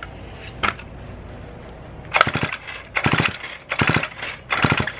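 Two-stroke engine of a 1950s David Bradley chainsaw being pull-started, its recoil starter yanked four times in quick succession about a second apart after a single knock. The engine turns over without catching while fuel is drawn through the freshly rebuilt carburetor.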